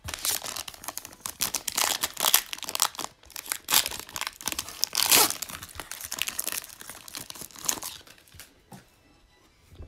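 Foil wrapper of a Panini Prizm Draft Picks trading card pack being torn open and crinkled by hand, a dense crackle that runs about eight seconds, thins out and stops.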